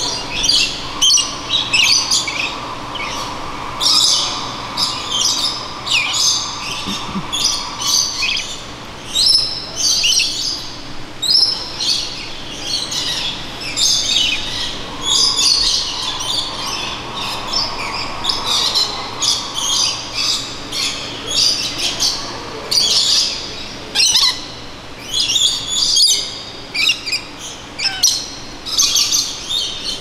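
A flock of lorikeets calling nonstop, with short, shrill, high-pitched squawks and chirps overlapping one another. A steady hum rises and fades twice behind the calls.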